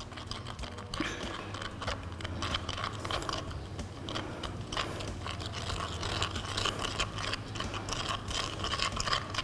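Glass stirring rod scraping and clicking against the inside of a plastic beaker while mixing soil into distilled water, a quick, irregular run of small gritty scrapes and ticks.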